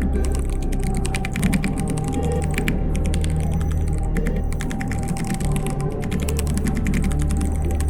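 Rapid, continuous typing on a computer keyboard, many fast clicks of the keys, over background music with a steady low bass.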